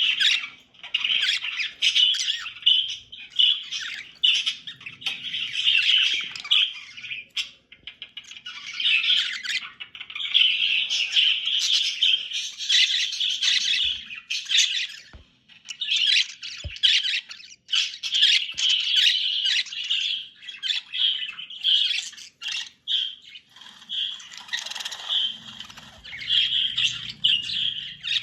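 Budgerigars chattering and chirping in fast, busy bursts of a few seconds each, with short pauses and a few sharp clicks between them.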